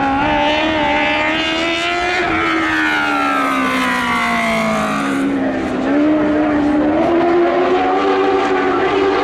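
Lightning sprint car engine at racing speed: its pitch climbs, drops away over a few seconds as the car lifts for a turn or goes past, then climbs again about six seconds in as it accelerates.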